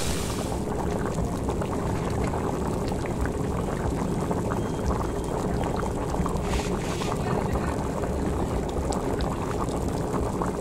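Curry gravy boiling hard in a wok: a steady, dense bubbling and crackling.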